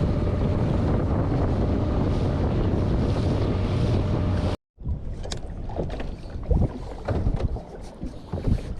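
Boat's outboard motor running steadily under way, with wind rushing on the microphone. After a cut a little over four seconds in, uneven, quieter wind and water noise with scattered splashes against the hull.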